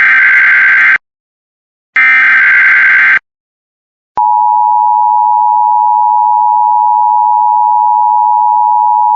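Emergency Alert System broadcast signal: the last two screeching SAME header data bursts, about a second each with a second of silence between, then just after four seconds in the steady two-tone EAS attention signal starts abruptly and holds.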